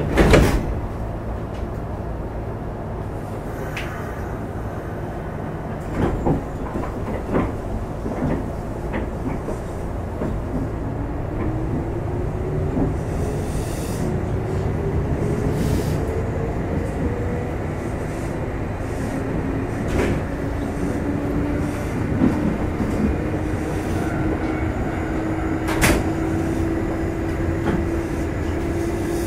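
Kintetsu 2610-series electric train heard from inside a motor car as it pulls away and accelerates: a thump right at the start, then steady running noise with scattered clacks from the wheels over rail joints. The traction motor and gear whine rises in pitch from about ten seconds in, and a second, slowly rising whine follows in the second half.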